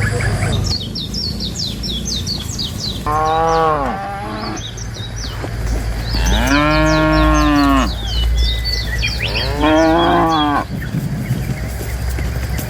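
Cows mooing: three long calls a few seconds apart, each rising and then falling in pitch. Quick, high chirps run throughout.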